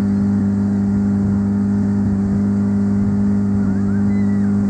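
Motorboat engine running at a steady pitch: a constant, even drone.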